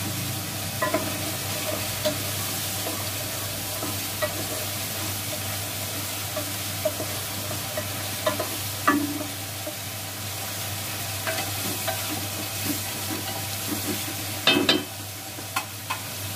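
Mutton pieces sizzling in hot oil in a pot as they are browned, with a spatula stirring and scraping against the pot now and then, over a steady low hum. A short clatter near the end.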